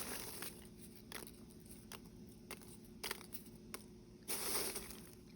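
Faint, scattered crunches and clicks of popped popcorn, about five light ticks, with a brief soft rustle near the end.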